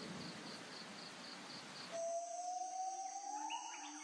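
Insect-like chirping, a high pulse about four times a second over a steady hiss. About halfway through it changes abruptly to a steady high insect-like buzz, with a lower tone sliding slowly upward beneath it.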